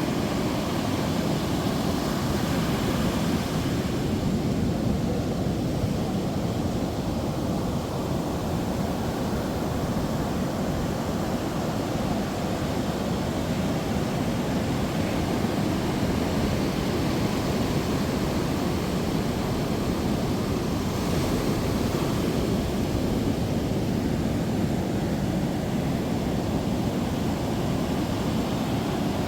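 Ocean surf rushing in a steady wash, with some wind on the microphone.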